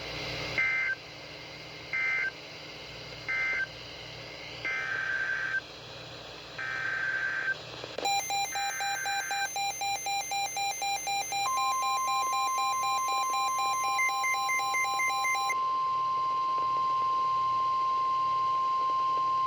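Emergency Alert System data tones, heard as three short two-pitch warbling bursts of the end-of-message code and then three longer bursts of a new SAME header. A rapid repeating beep pattern follows, and about eleven seconds in the steady single-pitch 1050 Hz NOAA Weather Radio warning alarm tone begins and holds.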